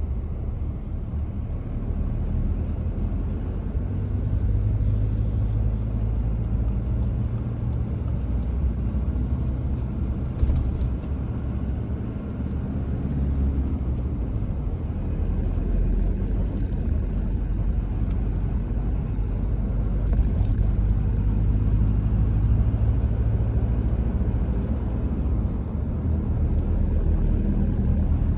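A car driving along a road: a steady low rumble of tyres and engine that swells and eases slightly with the road.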